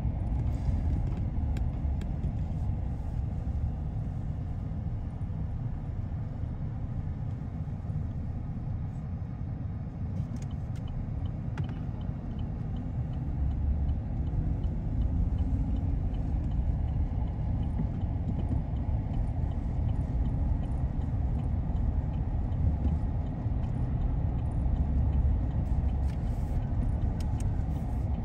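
Car driving along, a steady low rumble of engine and tyres on the road.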